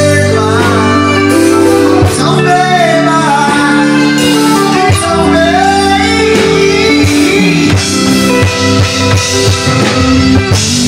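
Live band music with guitar and drum kit over sustained chords, and a wavering, sliding melody line on top.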